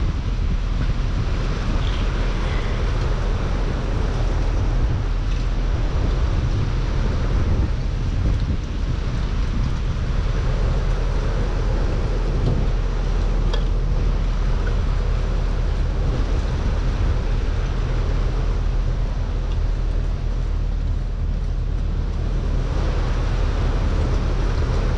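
An engine running steadily at an even idle, with a low hum and a noisy wash over it.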